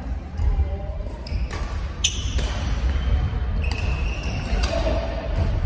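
Badminton rally: racket strings smacking a shuttlecock, five sharp hits about a second apart, with brief shoe squeaks on the wooden court floor and a steady low rumble underneath.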